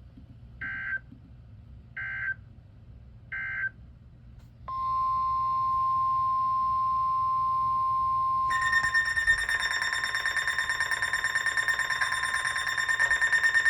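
Emergency Alert System signals on NOAA Weather Radio: three short data bursts of the digital alert code about a second and a half apart, then the steady 1050 Hz weather-radio warning tone. About halfway through, a louder, rapidly pulsing electronic alarm starts over it and runs until it cuts off suddenly at the end.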